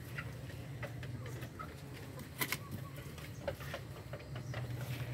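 Faint calls of poultry in a backyard coop, over a low steady hum, with scattered light clicks and rustles and one sharper click about halfway through.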